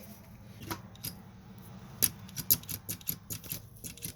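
Light metallic clicks from a Honda Z50 minibike engine's gearbox being turned by hand while it is shifted: a couple of single clicks, then from about two seconds in a quick irregular run of clicks, about five a second. The shifting is being tested because something in the shift mechanism is thought to be slightly out of adjustment, so it does not find its gears properly.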